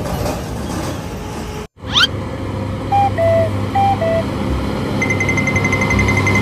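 A low steady vehicle hum with electronic tones over it. The hum cuts out for a moment and a quick rising sweep follows. About three seconds in, a two-note high-then-low tone sounds twice, and from about five seconds in a rapid, high-pitched beeping starts, like an alarm.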